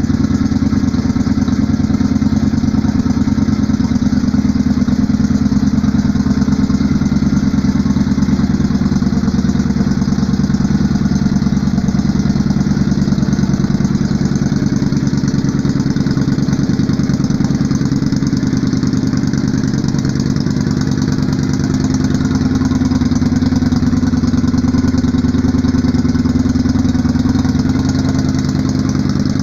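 Yamaha Virago XV535's air-cooled V-twin engine idling steadily and loud, with a deep, even exhaust note.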